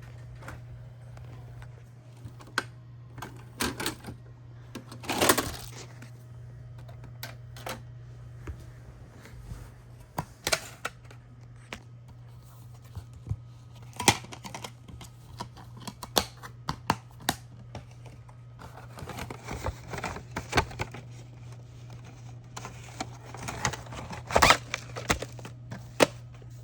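Irregular sharp clicks and taps, with a few louder knocks, over a steady low hum.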